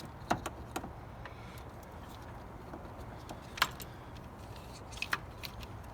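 Scattered sharp clicks and knocks of parts and cables being handled and moved aside, the loudest about three and a half seconds in, over a steady low hum.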